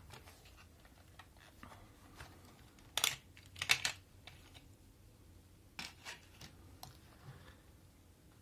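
Plastic body of a Fujica Auto 7 compact camera being handled and fitted together: scattered light clicks and taps, with a sharper cluster of clicks about three to four seconds in and another near six seconds.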